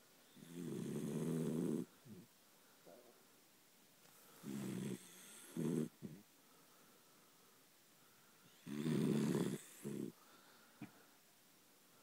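A sleeping dachshund snoring in slow breaths. There are three long snores about four seconds apart, each followed by one or two shorter ones.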